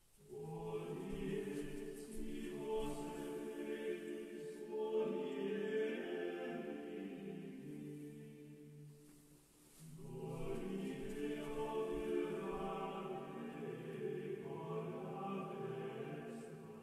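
A choir singing in two long phrases of held notes, with a short break about ten seconds in.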